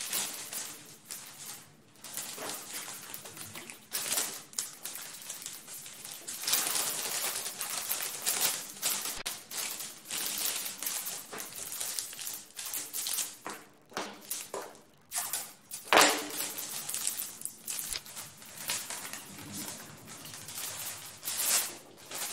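Newspaper crinkling and rustling in irregular bursts as it is rolled around wooden table legs, with one sharper, louder crackle a little after two-thirds of the way through.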